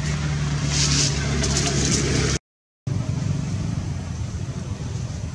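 A steady low hum with a rushing noise over it, broken by a sudden half-second dropout to silence about two and a half seconds in, then going on as a rougher low rumble.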